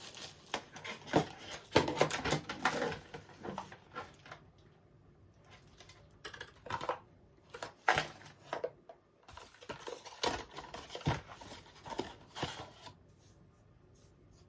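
Hands handling a freshly unboxed power bank, its case and packaging: irregular clicks, taps and light rustles, with short pauses between.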